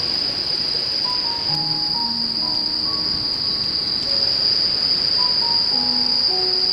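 Insects trilling steadily in one continuous high, even drone, with soft, sparse melody notes of background music underneath.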